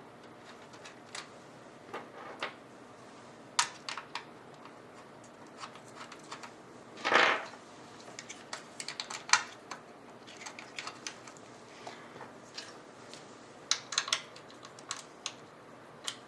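Scattered sharp clicks and light taps of small plastic and metal PC parts being handled as a liquid-cooler CPU block and its mounting bracket are fitted, with one louder, longer scrape about seven seconds in.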